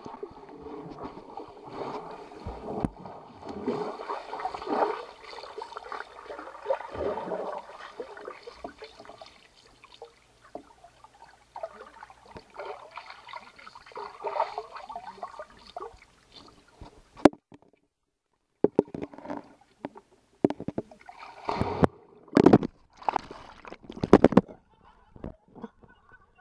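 Muffled underwater gurgling, bubbling and splashing of pool water, heard through a waterproof camera housing as a German shorthaired pointer dives down to it. After a sharp click and a brief gap, irregular loud knocks and clacks follow as the dog's teeth grip and carry the camera housing.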